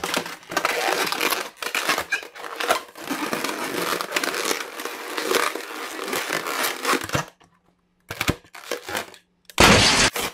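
Hands squeezing and rubbing an inflated long red latex balloon, its rubber squeaking and rustling. After a short pause comes a loud burst of noise just before the end.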